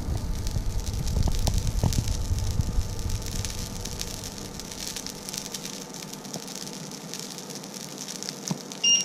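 Oil and burnt residue sizzling and crackling in a hot black steel pan on an electric hob: a steady hiss dotted with small pops.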